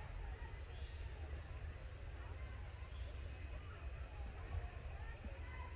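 Insects chirping in an evening field: a steady high-pitched trill that swells in regular pulses a little more than once a second, over a low rumble.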